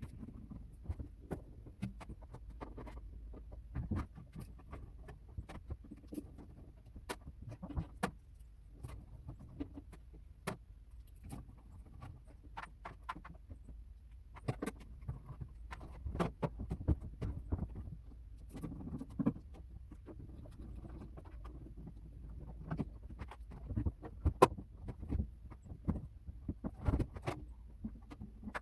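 Irregular metallic clicks, taps and rattles as screws are taken out and the sheet-metal back cover of an old microwave is worked loose, over a low rumble of handling.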